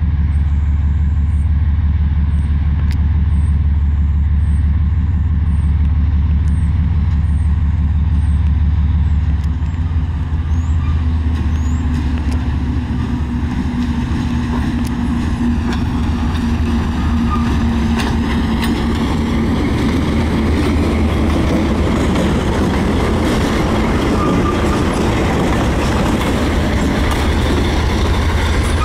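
GE B23-7 diesel locomotive with its 12-cylinder engine running as it approaches and passes close by. A deep engine rumble leads; after about nine seconds it eases and gives way to rolling wheel and rail noise as the hopper cars go by.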